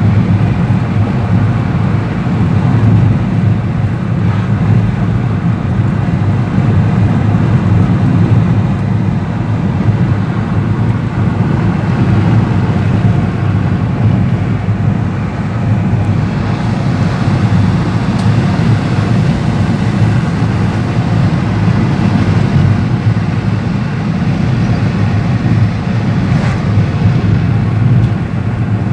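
Car driving along a country road, heard from inside the cabin: a steady, loud low rumble of engine and tyre noise, with a little more hiss in the second half.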